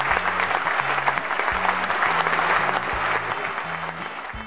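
Applause sound effect over background music with a low, stepping bass line, fading out near the end.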